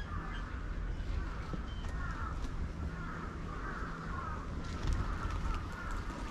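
Birds calling over and over, short wavering calls, over a steady low background rumble.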